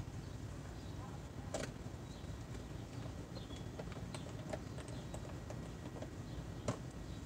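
Scattered light clicks and taps of hand tools and fasteners on a Suzuki Hayabusa's front end, with a sharper knock about a second and a half in and another near the end, over steady low background noise.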